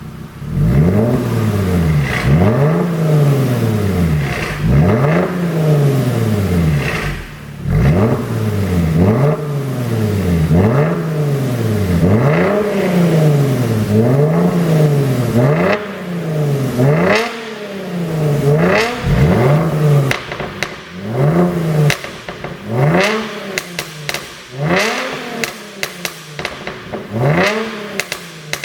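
Mercedes-Benz W212 E300's V6 engine blipped over and over, rising and falling in pitch every second or two. The exhaust pops and crackles as the revs drop, most sharply in the last third: the overrun crackle of a pops-and-bangs tune.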